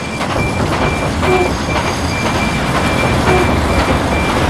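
Sound-design bed of a production-logo sting: a steady, loud, heavy rumble with a short high ping repeating roughly every half-second.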